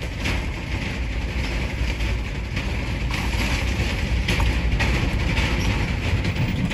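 Vehicle crossing a steel truss bridge with a metal-plated deck, heard from inside the cabin: a steady low rumble of engine and tyres with a few knocks and rattles from the deck plates under the wheels.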